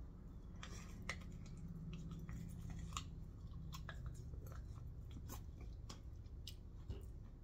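A person with full dentures biting and dragging their teeth along a corn on the cob, pulling kernels off: faint, irregular crunches and clicks, then chewing. The bite is an effortful scrape rather than a clean bite, because the dentures cannot bite through the cob cleanly.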